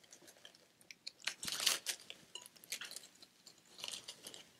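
Crunchy rustling and scraping with scattered light clicks, loudest about a second in: ingredients and utensils being handled while the bread dough is put together.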